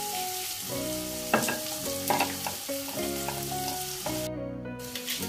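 Tadka sizzling in hot oil in a kadai on a gas burner, with a couple of light utensil clinks in the first half. Soft background music plays along.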